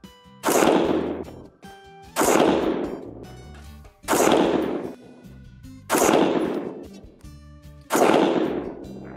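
Stag Arms STAG-15 AR-15 in .223, fired unsuppressed: five single shots about two seconds apart, each a sharp report that trails off for about a second.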